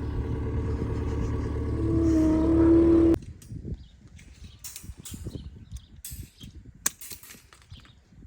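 A farm machine's engine running under load, its tone rising as it works harder, then stopping abruptly about three seconds in; light clicks and clatter follow.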